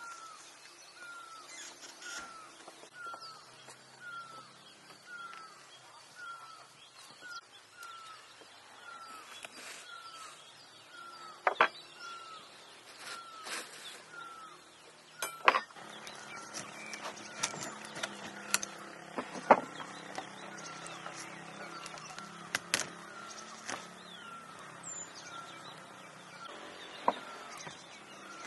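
A bird repeating a short falling chirp about once every two-thirds of a second, with several sharp knocks and clicks as a roasted rabbit and its metal skewers are handled on a wooden cutting board.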